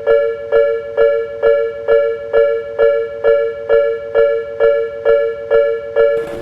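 Japanese railroad level-crossing warning bell ringing steadily: a repeated two-tone electronic ding, a little over two strikes a second, signalling that a train is approaching and the barriers are down.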